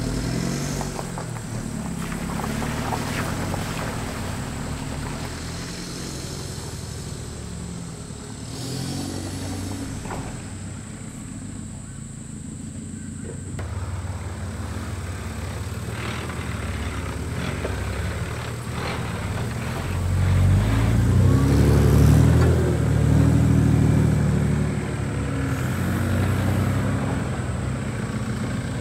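Four-wheel-drive engines on a muddy track: a 2.8 turbo-diesel Holden Colorado pulling away, then, after a cut, an 80 Series Toyota LandCruiser driving up the rutted mud. The LandCruiser is loudest about two-thirds of the way in, its engine revving up and down as it passes.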